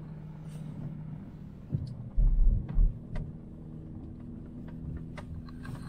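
Car engine and road drone heard from inside the cabin while driving a dirt trail, steady and low, with a few loud low thumps about two seconds in and scattered short rattling clicks.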